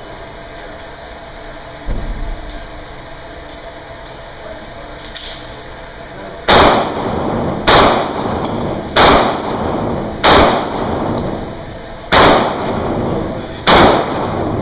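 Six pistol shots at a steady pace, a little over a second apart with a longer pause before the fifth, each ringing off the concrete-block walls of an indoor range. A dull thump comes about two seconds in, before the shooting starts.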